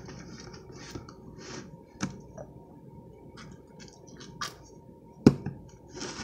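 A spoon stirring thickening slime in a small bowl as contact solution is added: wet squishing and scraping with light clicks of the spoon against the bowl, and one sharp knock about five seconds in.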